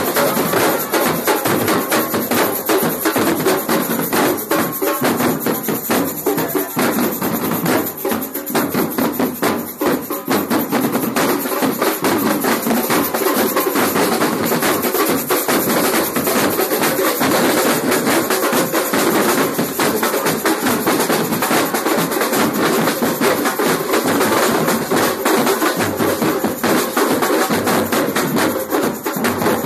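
Street percussion band drumming together, surdo-style bass drums and other drums playing a dense, continuous rhythm.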